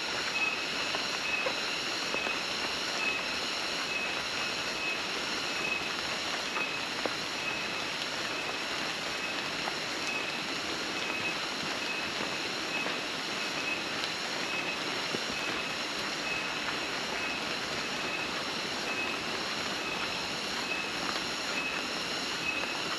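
A chorus of insects giving a steady, loud, buzzing drone, its high buzz pulsing fast and regularly.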